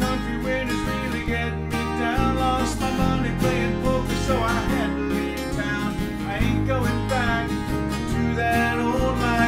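Two acoustic guitars strumming chords together while a man sings lead vocals.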